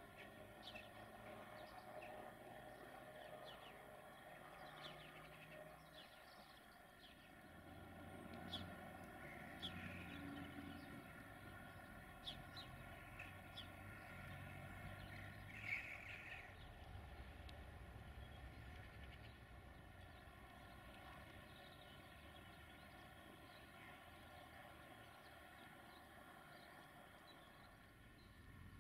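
Faint outdoor ambience: scattered short bird chirps over a low, distant rumble.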